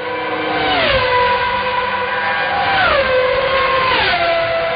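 Intro soundtrack of sustained electronic tones held as a chord, the whole chord sliding down to a new pitch three times, about every second or two.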